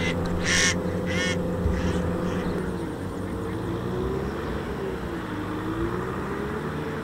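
Kubota M6040 tractor's four-cylinder diesel engine running as it pulls a loaded trailer, its note dipping and climbing again in the middle. Two short high-pitched squawks sound about half a second and a second in.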